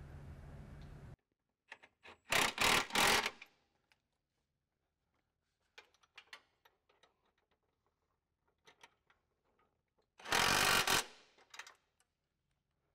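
A power tool runs nuts onto the bumper mounting studs in two short, loud bursts, one about two seconds in and one about ten seconds in, with light clicks and taps of handling between. A steady background hum cuts off abruptly about a second in.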